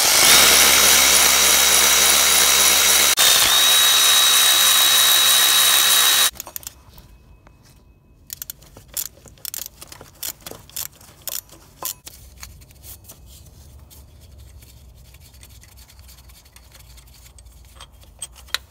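A cordless power tool spinning a 13 mm socket to back out a brake vacuum pump mounting bolt, running steadily for about six seconds with a brief catch about three seconds in, then stopping abruptly. After that, scattered clicks of a hand ratchet and light knocks of tools on metal.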